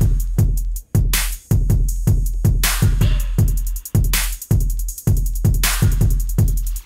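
Background music: a drum-machine hip-hop beat with heavy bass and sharp, bright percussion hits in a steady rhythm.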